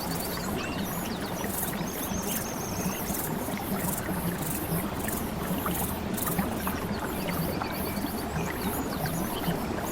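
Steady flowing water, with high trills of quickly repeated notes and scattered chirps over it, several times.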